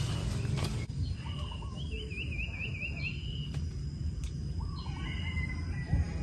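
Small birds singing in the trees: short chirps, a quick warbling trill of repeated up-and-down notes about two seconds in, and a brief whistled phrase near the end, over a steady low outdoor rumble.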